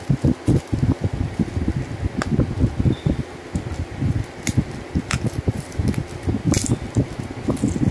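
A bubble-wrap parcel being handled and pressed by hand: irregular low bumping and rustling of the plastic, with a few sharp crackles about two, four and a half, five and six and a half seconds in.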